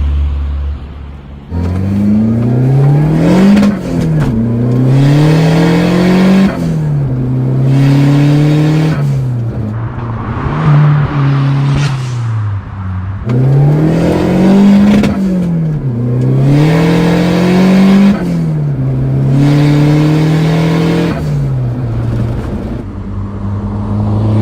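Tuned 230 hp Fiat Uno Turbo i.e. 1.3-litre turbocharged four-cylinder engine accelerating hard through the gears. Its pitch climbs, drops back at each gear change and climbs again, several times over.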